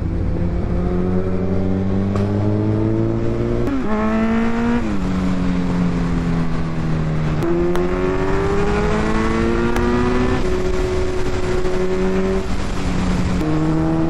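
Kawasaki Z900's inline-four engine pulling hard under acceleration. Its pitch climbs steadily, then falls suddenly several times with the gear changes.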